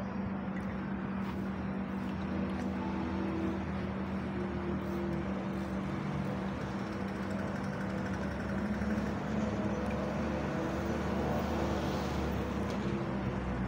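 A steady mechanical hum at one constant pitch, running throughout, over a steady background noise.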